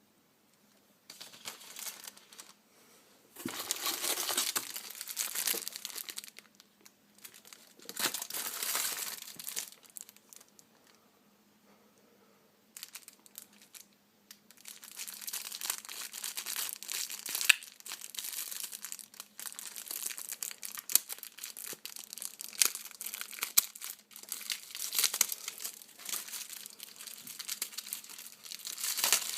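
Packaging being crinkled and handled as items are unwrapped. It comes in several bursts with short pauses, then runs almost continuously through the second half.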